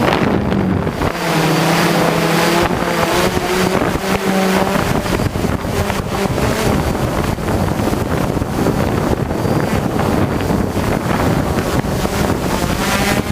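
Hexacopter motors and propellers humming steadily, their pitch shifting now and then, with wind buffeting the microphone.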